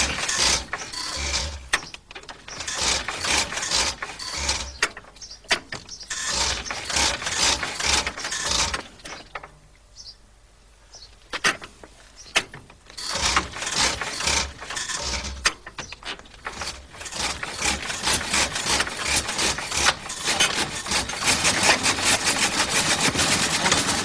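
The engine of a 1902 Wolseley being hand-cranked to start with its starting handle set on half compression: bouts of mechanical clatter and ratcheting with a short lull in the middle. In the last few seconds the engine catches and runs, its firing becoming rapid and steady.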